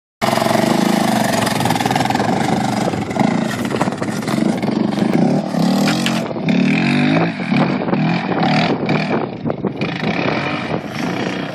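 Yamaha Raptor 700R sport ATV's single-cylinder four-stroke engine running under throttle, revving up and falling back several times.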